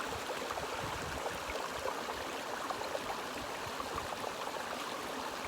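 Seawater lapping and trickling against a rocky shore: a steady wash of water with small splashes and crackles throughout.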